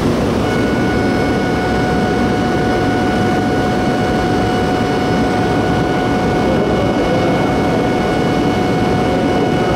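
Shinkansen platform departure bell: a steady electronic ring held at one pitch for about nine seconds, starting about half a second in, over a constant low rumble of the waiting train and platform.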